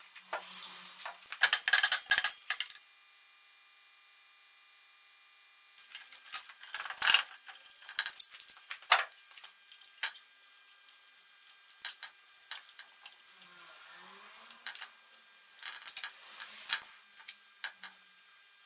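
Light metallic clinks and clicks of a thin hand tool and small metal parts against the head of a Singer 29K33 shoemaker's sewing machine as it is worked on by hand. They come in scattered groups, with a pause of a few seconds after the first group.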